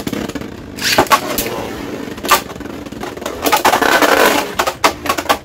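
Beyblade Burst spinning tops whirring and scraping on the plastic stadium floor, with sharp plastic clacks of hits about a second in, just after two seconds, and near the end. The scraping grows louder for about a second near the middle.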